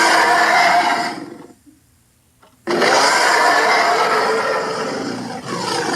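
Grizzly bear roaring, a film sound effect: one roar dying away in the first second and a half, then after a short pause a second long roar that swells again near the end.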